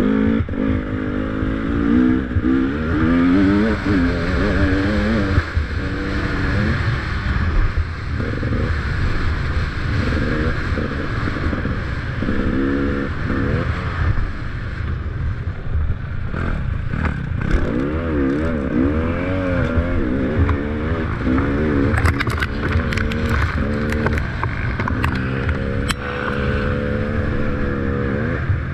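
300 cc two-stroke enduro motorcycle being ridden, its engine revving up and falling back over and over as the throttle is worked, over a constant low rumble. A run of sharp clicks and clatter comes in near the end.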